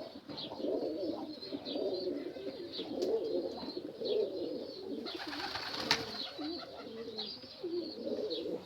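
Domestic pigeons cooing, several overlapping low warbling coos, with faint high chirps now and then.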